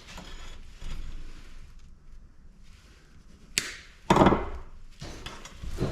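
A few sharp knocks and a short clatter of metal parts and hand tools being handled, loudest just after four seconds in.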